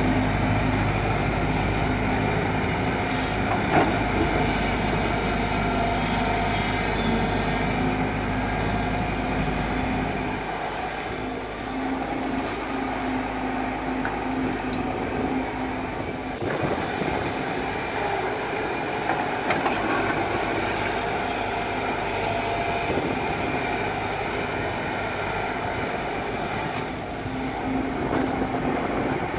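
Tracked JCB excavator's diesel engine running steadily under hydraulic load while it digs, with a few sharp clanks. The deep part of the engine sound drops off about ten seconds in.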